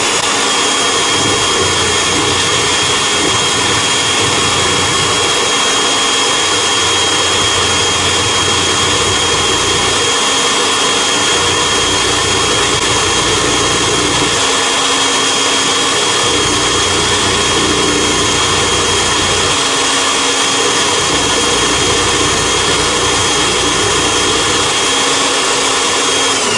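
Benchtop drill press running at a steady speed with a small router bit, its motor giving a constant high whine, as a small strip of wood is fed past the bit to cut trim molding. The whine winds down at the very end as the machine is switched off.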